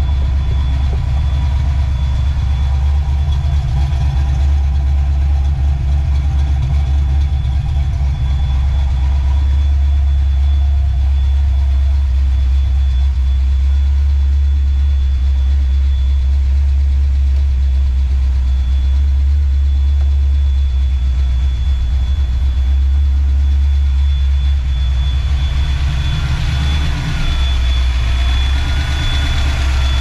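Ford 302 cu in (5.0 L) small-block V8 idling steadily, a deep even running sound with a faint steady high tone on top; the sound grows a little brighter near the end.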